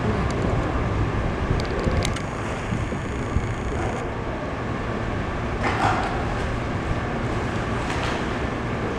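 Steady low background rumble and noise around an aquarium pool, with a few light clicks about two seconds in and a short burst of noise near the six-second mark.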